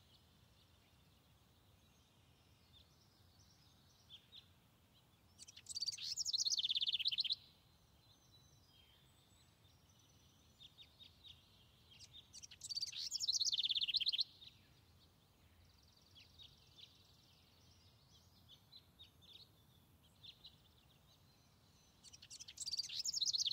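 A songbird singing: three short phrases of quick, high notes, each about two seconds long, several seconds apart, with faint single chirps in between.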